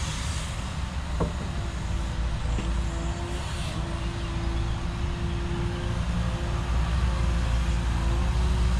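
Excavator's diesel engine running under load, a steady low rumble with a thin, steady whine from the hydraulics, growing a little louder near the end. A short click sounds about a second in.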